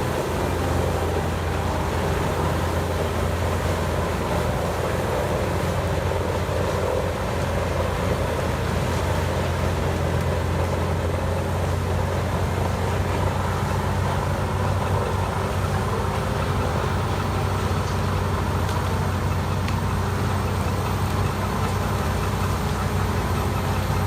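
Large engine of a heavy wood-processing machine running steadily, with a constant low drone and no marked changes in speed.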